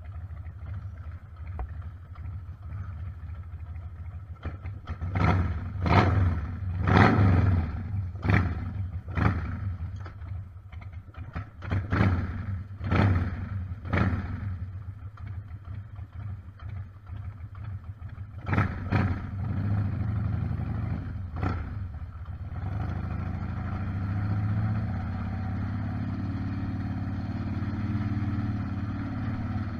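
Harley-Davidson V-twin motorcycle engine idling, with a run of sharp knocks and bumps close to the microphone, about one a second, as the helmet camera is handled. Near the end the engine pulls away under light throttle and runs on steadily at low speed.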